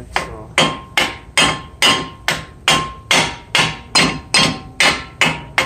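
A hammer strikes the end of a Kia front CV axle with its nut left on, in a steady run of about fourteen blows, roughly two and a half a second. Each blow carries a short metallic ring. The blows are driving the seized axle splines inward through the wheel hub.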